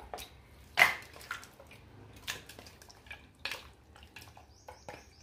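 Raw mutton pieces dropped and scraped off a ceramic plate into an aluminium pressure cooker: one sharp knock about a second in, then scattered softer wet knocks and clinks of the plate against the pot.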